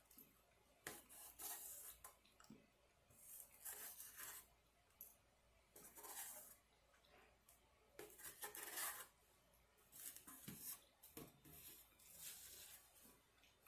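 Faint chewing and eating sounds of a person eating lasagna, coming in short rustly bursts every second or two.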